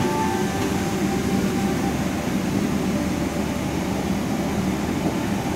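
Steady rush and hum of a Boeing 777-300ER's cabin air-conditioning and ventilation, an even noise with a faint whine in the first second.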